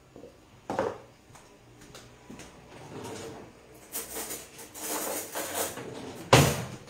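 Kitchen clatter: dishes and utensils being handled and set down, with a few scattered knocks, a run of clinking in the second half and one sharp, louder knock near the end.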